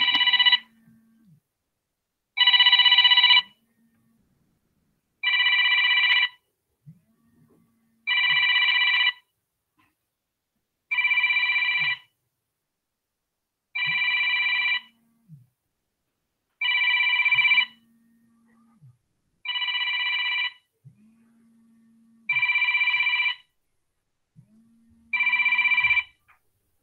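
Telephone ringing: a repeating ring of several steady tones, about a second on and two seconds off, ten rings in all.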